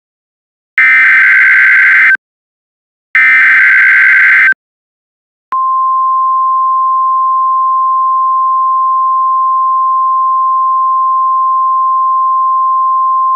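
Two bursts of Emergency Alert System SAME header data, each a loud, harsh digital screech about a second and a half long, about a second apart. They are followed about a second later by the steady single-pitch 1050 Hz NOAA Weather Radio warning alarm tone, which marks the start of a tornado warning, here a test.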